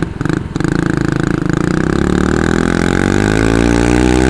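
The small engines of a Kawasaki Bayou 220 ATV and a John Deere D110 riding mower running under load as they pull against each other. From about two seconds in, one engine's pitch climbs steadily as it revs up.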